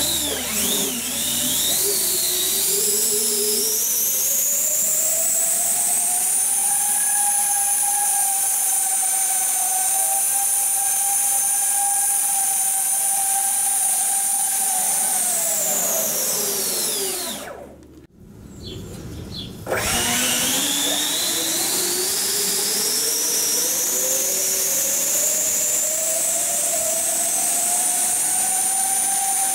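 Electric ducted fans of a Do-31 VTOL model spooling up to a high, steady whine at hover thrust, holding, then winding down. After a brief cut, the fans spool up again with the same rising whine and settle at a steady pitch.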